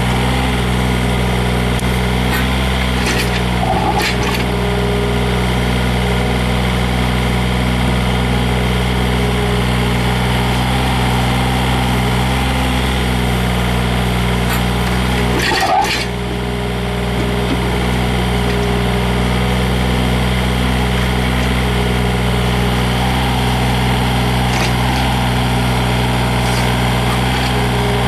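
Yanmar VIO35-3 mini excavator's three-cylinder diesel engine running at a steady speed, with a few sharp clanks; the loudest comes about sixteen seconds in, followed by a brief dip in the engine sound.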